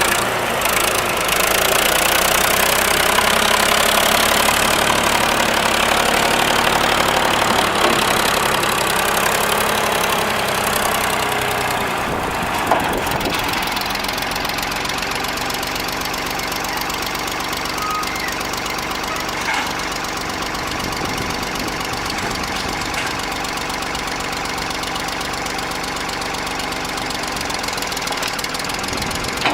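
Ford 550 backhoe's engine running, louder for about the first twelve seconds, then settling to a steady idle.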